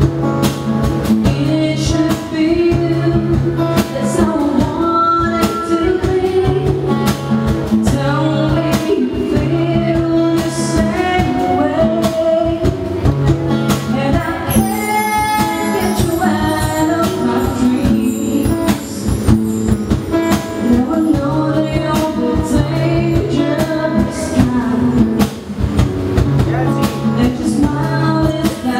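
Live acoustic band playing a song: a woman singing lead into a microphone over a strummed acoustic guitar and a steady cajon beat, with a brief high shimmer about halfway through.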